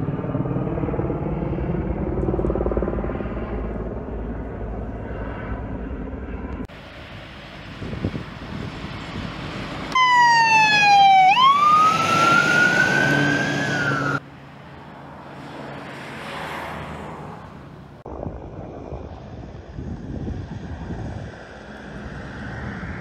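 A fire engine's siren wails for about four seconds, about ten seconds in, sweeping down in pitch and then rising again before cutting off; it is the loudest sound. Before it comes a steady low helicopter drone.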